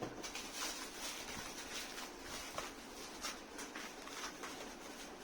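Box being opened and unpacked: irregular rustling and scraping of cardboard and packing material with scattered small clicks.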